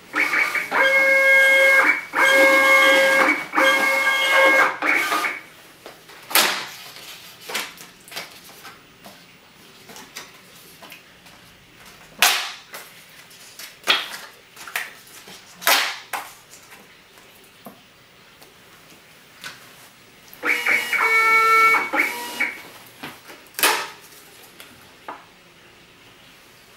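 Stima CMP thermal ticket printer feeding and printing ticket stock, its motor giving a steady multi-tone whine in runs broken by short pauses, for about five seconds at the start and again in a shorter run about three quarters of the way through. In between, sharp snaps and crackles of card tickets being handled and torn apart at their perforations.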